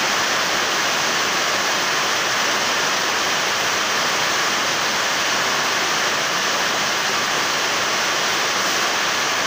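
Steady, even rushing noise that holds the same level throughout, with no motor whine or hammering from the drill in it.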